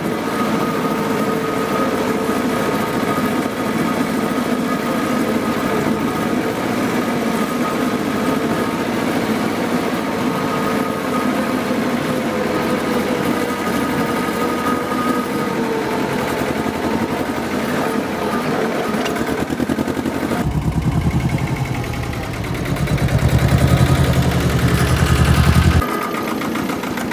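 Fiat 215 tractor's 1135 cc two-cylinder prechamber diesel running steadily as the tractor is driven, with a steady whine over it. About twenty seconds in, a deep low rumble takes over for about five seconds, then drops away.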